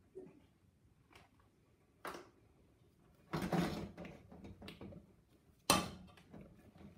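A spatula stirring sticky melted marshmallow in a stainless steel saucepan on a coil stove: a few light clicks, then two louder scrapes and knocks of the pan, about three and a half and nearly six seconds in.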